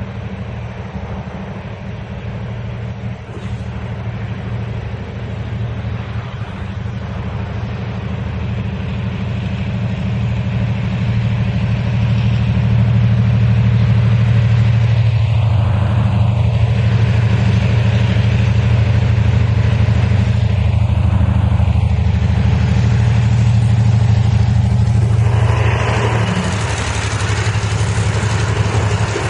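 Railway train approaching on the track, its locomotive's low, steady drone growing louder. Near the end a broad rush of noise comes in as the train passes close.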